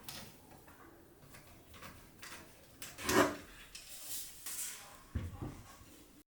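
PC parts being handled and fitted by hand: scattered light clicks and knocks, one louder, short, ringing clack about three seconds in, and a dull thump about five seconds in.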